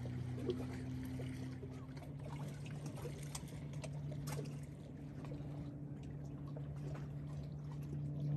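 Small lake waves lapping and trickling against a rocky shore, with many little clicks and splashes, over a steady low hum.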